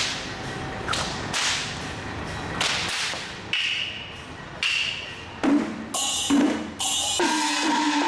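Long braided Taoist ritual whip being swung and cracked, giving a series of sharp cracks about a second apart. From about halfway, ringing metal percussion strikes join in.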